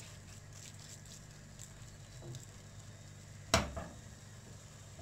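Spoon stirring greens and dal in a stainless steel pot, with a faint sizzle and soft scraping ticks, then one sharp clink of the spoon on the pot about three and a half seconds in.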